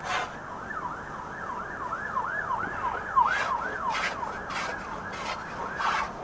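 Emergency-vehicle siren in yelp mode, its pitch sweeping up and down about two and a half times a second. In the second half, several short scraping strokes sound over it: a tool shaving a bevel on a wooden boat plank.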